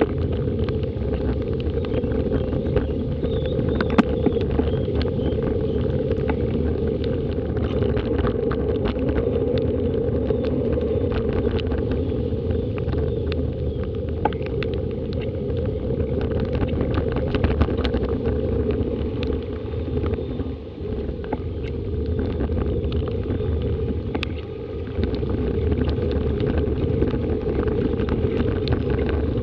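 Steady, muffled rumble of a bicycle riding through flooded streets in heavy rain among traffic: wind and splashing water on an action camera's microphone, with many scattered sharp ticks.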